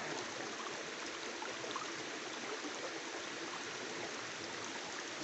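Steady rush of flowing river water, with a few faint clicks.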